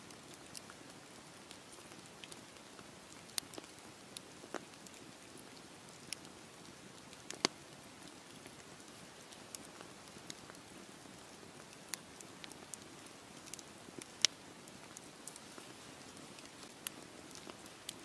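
Wood campfire of split logs burning, irregular sharp crackles and pops scattered over a soft steady hiss. Two pops stand out as much louder, one a little before halfway and one later on.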